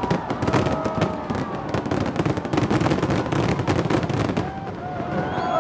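Dense barrage of aerial fireworks: many rapid bangs and pops running into one another, thinning out about four and a half seconds in.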